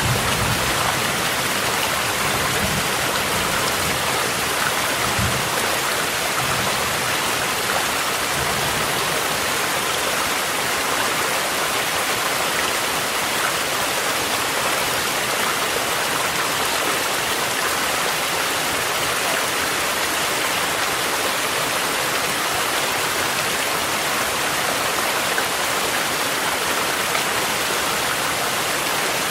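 A mountain stream and steady rain mixed together, an even rushing hiss. A low rumble of distant thunder fades away over the first several seconds.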